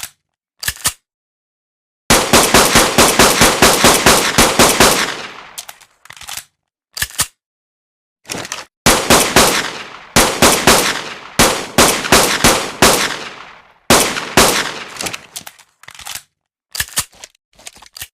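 Fabricated pistol firing sound effect. A long run of rapid shots starts about two seconds in, then come a few single shots, then several more bursts of rapid fire, and scattered single shots near the end, with dead silence between.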